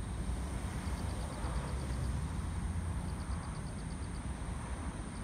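Outdoor city ambience: a steady low rumble of distant street traffic. Faint rapid high ticking comes and goes in short runs of about a second.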